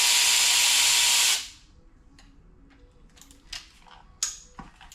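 A power tool runs for about a second and a half, with a steady whine under a loud hiss, and then stops suddenly. It is likely spinning out a bolt during an LS engine teardown. Light metallic clicks of tools and parts follow.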